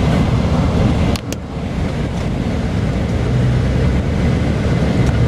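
Tour coach driving, heard from inside the cabin: a steady low engine drone and road rumble, with a short click about a second in.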